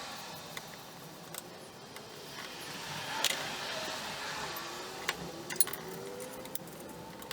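Light metallic clinks and sharp taps of hand tools working on a metal gumball machine part while a pin is being worked out, a handful of scattered strikes with the loudest a little after three seconds in and two more around five to six seconds.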